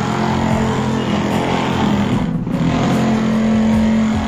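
Handheld tile vibrator held against a large wall tile, its motor running with a steady buzzing hum while it beds the tile into the mortar.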